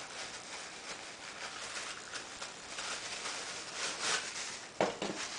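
Rustling and crinkling of packaging as kit parts are handled and taken out of their boxes, with a louder knock near the end.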